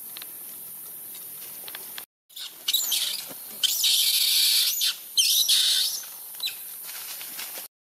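Young long-tailed macaque screaming: loud, high screeches that sweep up and down in pitch, in several bouts starting about three seconds in. It is the fear scream of a young monkey frightened by a bigger one.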